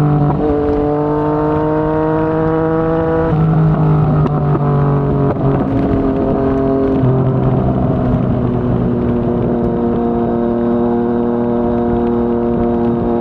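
Yamaha MT-09's inline three-cylinder engine through a Yoshimura R55 slip-on exhaust. It rises in pitch as the bike pulls through a gear, changes gear about three seconds in, and settles to a steady cruising pitch over the second half.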